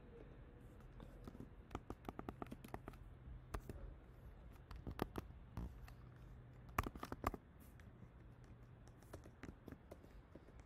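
Computer keyboard typing, faint: scattered keystroke clicks in short runs, over a low steady hum.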